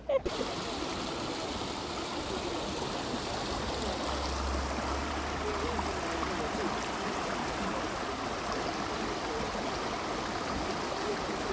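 Water running and trickling steadily over rocks in a small cascade into a garden pond.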